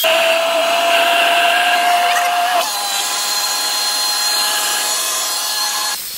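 Countertop jug blender motor running at speed, puréeing fried sweet potato and onion into a thick soup. It is a loud, steady whine that steps down slightly in pitch about two and a half seconds in, and it eases a little near the end.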